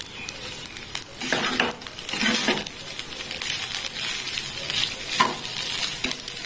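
Metal spatula stirring and scraping vegetable fried rice in a frying pan on the stove, the rice sizzling lightly. There are a few louder scraping strokes in the first three seconds and a sharp clink about five seconds in.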